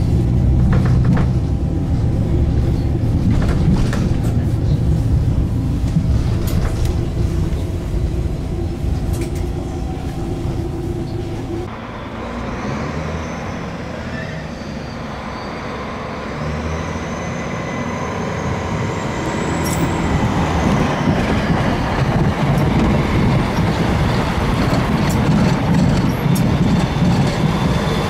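Stadler Citylink tram-train running, first heard inside the car as steady low ride rumble. After an abrupt change it is heard from the trackside, approaching and passing with a high whine that glides up and falls, growing louder near the end as it draws close.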